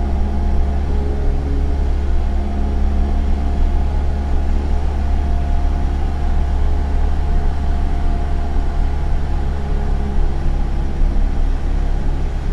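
Single-engine light aircraft's piston engine and propeller droning steadily, heard inside the cabin.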